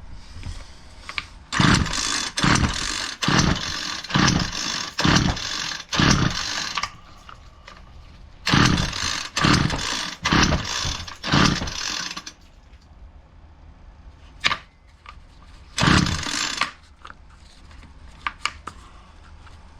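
Homelite 26cc two-stroke string trimmer being pull-started again and again, each short pull of the recoil starter cranking the engine for about half a second. There are about six pulls, a pause, about five more, and one last pull, and the engine never fires: it is not hitting, which the owner takes for a flooded engine.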